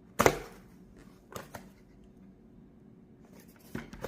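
Handling noises from a desk alarm clock: a sharp click or knock just after the start, two lighter clicks about a second later, and a few faint taps near the end.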